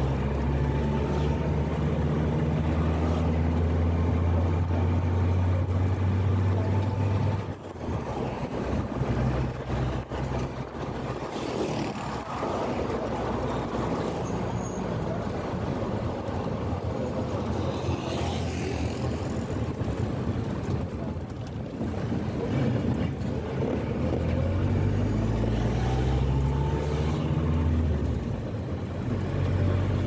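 Engine and road noise heard from inside a moving vehicle. A steady low engine drone drops away sharply about seven seconds in. The engine pitch climbs again near the end as the vehicle speeds up.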